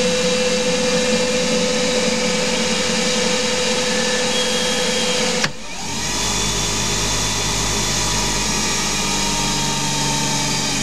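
Hercus PC 200 CNC lathe running, its spindle turning brass bar stock with a steady motor whine. About halfway through there is a sharp click and the sound changes to a deeper, steady hum.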